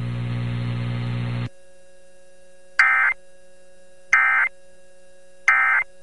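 NOAA Weather Radio Emergency Alert System end-of-message signal: three short, buzzy digital data bursts about a second apart, marking the end of the tornado warning broadcast. Before them, a steady radio hum cuts off about a second and a half in.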